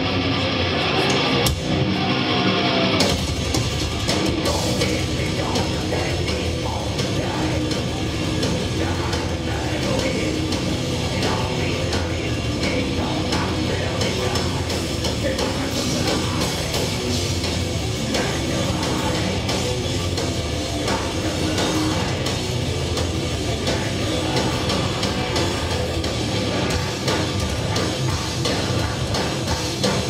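Live thrash metal band playing loud, with distorted electric guitars, bass and a pounding drum kit. A held guitar chord opens, and the full band comes in hard about three seconds in.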